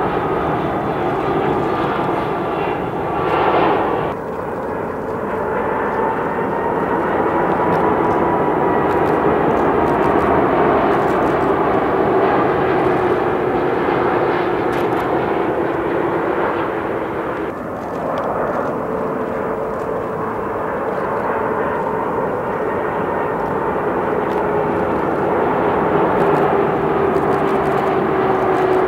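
Jet airliners on final approach with landing gear down, flying past: a steady engine rumble with a whine that slides slowly down in pitch. The sound changes abruptly twice, about four seconds in and again past halfway, as the footage goes from a Boeing 757 to one Airbus A330 and then to a second A330.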